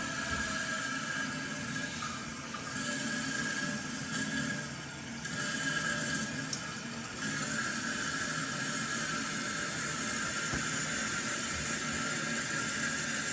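Kohler toilet tank refilling through its fill valve after the water supply is turned back on: a steady hiss of running water with a thin high tone. This is the refill that tests whether the newly replaced canister seal stops the toilet running.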